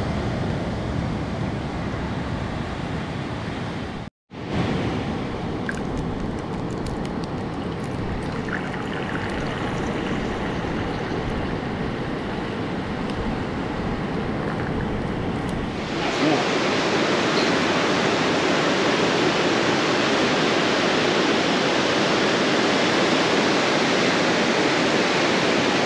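Steady rush of breaking surf and wind, with a few faint clicks near the middle. The sound drops out for a moment about four seconds in, and about two-thirds of the way through the wash of waves becomes louder and brighter.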